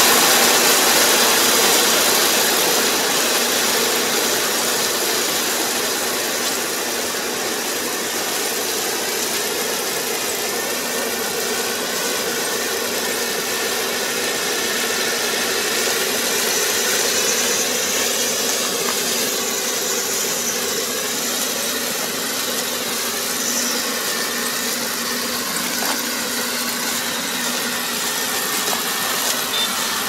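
Kubota ER470 combine harvester running steadily while harvesting rice, its engine and machinery a continuous drone that fades over the first few seconds as it moves away, then holds steady.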